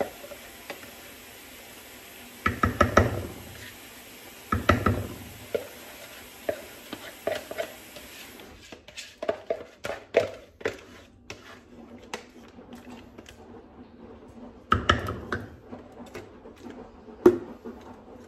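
Plastic yogurt tub being emptied over a glass baking dish of fruit salad: three dull thumps, two close together and one later, among scattered light clicks and knocks. A spoon stirring near the end.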